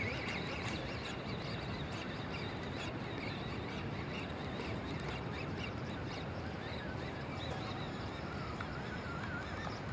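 Steady wind rushing over the microphone, with faint bird calls chirping in the background.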